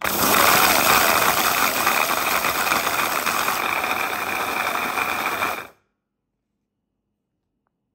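Blender chopper attachment running at full speed, its blade grinding raisins, pumpkin seeds, sesame, flaxseed and gelatin into a powder. It runs steadily for about five and a half seconds, then cuts off suddenly.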